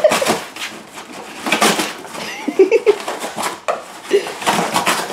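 A dog tearing and crushing a cardboard box with its jaws and paws: repeated bursts of ripping, crumpling cardboard, about five in a few seconds.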